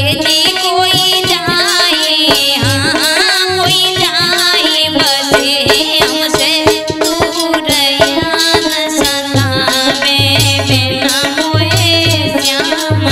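Music of a Hindi malhar folk song: a hand-drum rhythm under a wavering lead melody.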